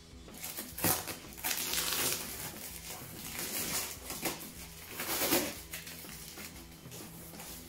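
Packing paper and a plastic bag crinkling and rustling as they are pulled out of a shipping box, in several irregular bursts.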